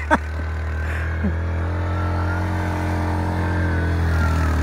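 Yamaha quad bike (ATV) engine running at a steady pace as the quad ploughs through deep snow, growing slightly louder as it comes closer.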